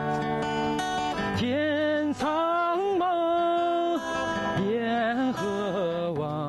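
A man singing a slow song in long held notes, accompanying himself on a strummed acoustic guitar.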